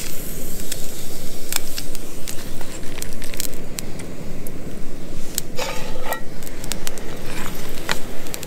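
Gas canister camping stove burning with a steady low rushing noise, with light clinks and scrapes of the frying pan and utensils as sausages are lifted out and the pan is taken off the burner. A brief squeak about six seconds in.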